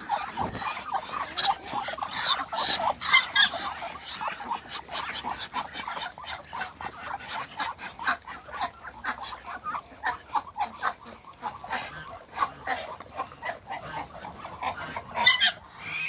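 A flock of Muscovy ducks and domestic geese calling, a steady run of many short calls with a louder one near the end.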